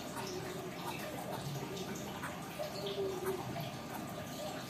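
Steady trickling, dripping water, with a few faint small ticks.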